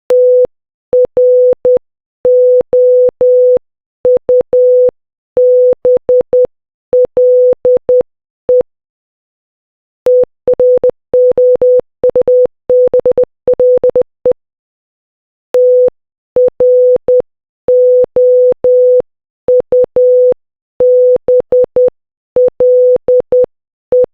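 Morse code for the word "trouble" (- .-. --- ..- -... .-.. .) beeped as a single steady tone keyed on and off in dots and dashes. It plays three times with short pauses between, the middle run faster.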